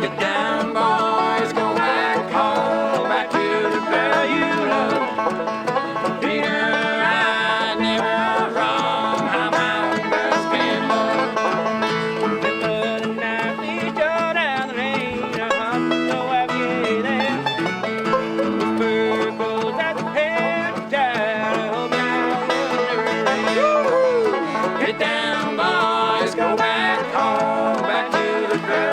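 Bluegrass band music, an instrumental break with a picked banjo to the fore.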